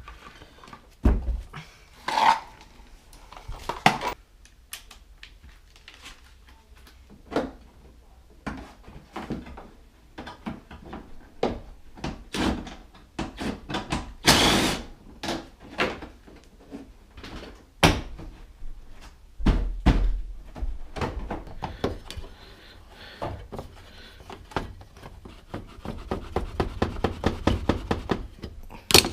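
Scattered knocks, clicks and clunks of hand tools and metal car parts being handled, with a longer scraping burst about halfway through and a quick run of clicks near the end.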